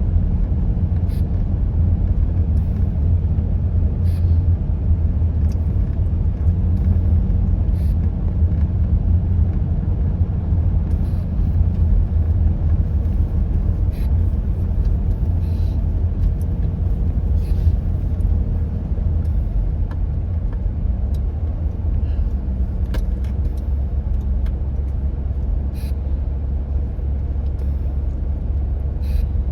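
Steady low rumble of a car driving, heard from inside the cabin, with a few faint scattered ticks.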